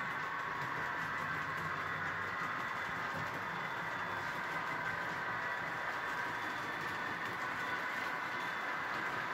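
Model train locomotive running along the layout's track, a steady whir of its motor and wheels on the rails.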